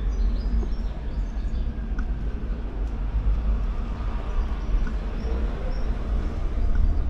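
Outdoor street ambience: a steady low rumble with faint, scattered bird chirps above it.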